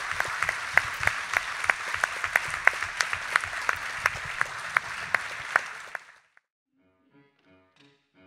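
Audience applauding, a dense patter of hand claps that dies away about six seconds in. Faint music with piano-like notes begins near the end.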